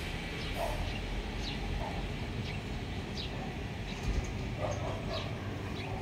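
A dog barking a few times over a steady outdoor rumble, with short high chirps in between.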